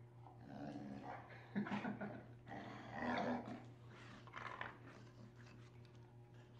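A dog growling in several short rough bursts while playing tug with a toy, the loudest about a second and a half in and another about three seconds in.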